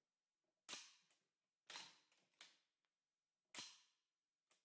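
Metallic clacks of a machine gun's action being worked by hand, its cocking handle and bolt moving. There are three sharp clacks about a second apart, a lighter one between the second and third, and a faint click near the end.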